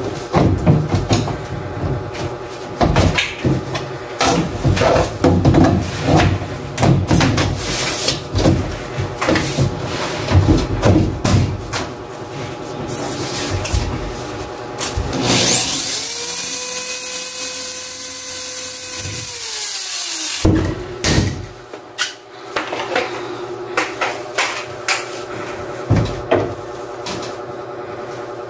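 PVC ceiling panels knocking and clattering as they are pushed and slotted into place overhead. About halfway through, an electric drill spins up, whines steadily for about five seconds and winds down, and then the knocking resumes.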